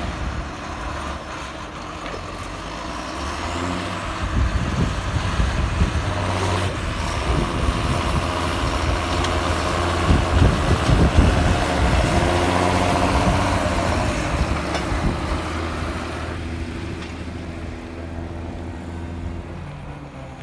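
John Deere 7530 tractor's six-cylinder diesel engine working hard as it climbs the silage clamp pushing grass with a buckrake. It gets louder as the tractor comes close around the middle, then fades as it pulls away.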